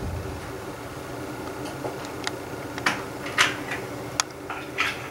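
Several light, sharp clicks and taps, scattered irregularly, over a steady low hum.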